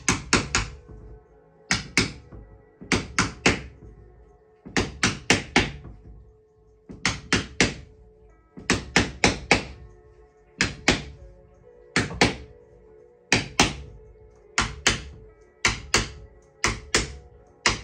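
Mallet tapping a wedge to drive pressed cane webbing into the groove of a chair seat. Sharp knocks come in quick groups of two to four, every second or two.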